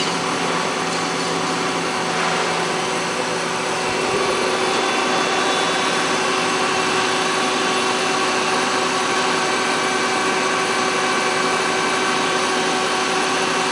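Steady running noise of a CNC Swiss-type lathe and its accessories: a mechanical hum and whine with several steady tones over an even hiss. It steps up a little in loudness and changes pitch about four seconds in.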